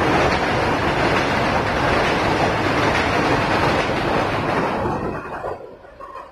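Freight train's covered goods wagons rolling past on the rails, a dense, loud rumble of wheels on track that dies away near the end as the tail of the train passes.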